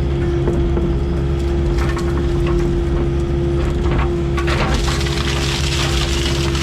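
Excavator's engine and hydraulics running with a steady hum, while manzanita brush cracks and splinters as it is smashed down, the crackling loudest from about four and a half seconds in.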